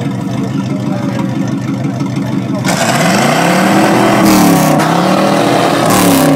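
An old Oldsmobile fastback's V8 idling steadily through a row of short open exhaust pipes, then revved twice from about three seconds in, the pitch rising and falling each time.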